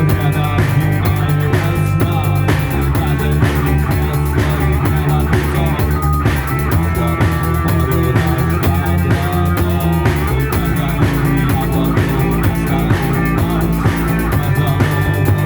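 Rock music with guitar and a regular drum beat, played without vocals.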